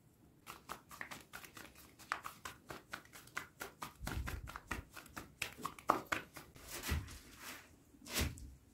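Thin sheet of bread dough slapped and flipped from hand to hand to stretch it: a quick run of soft pats, several a second, with a louder slap near the end.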